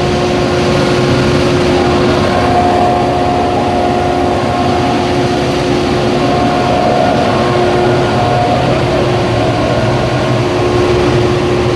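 Loud, steady running of industrial machinery at a glass furnace, a constant mechanical din with a steady hum.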